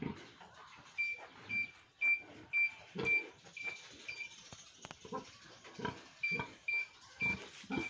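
A sow grunts short and low several times while a handheld ultrasound pregnancy detector pressed to her belly gives short high beeps about twice a second, with a pause of about two seconds a little past the middle.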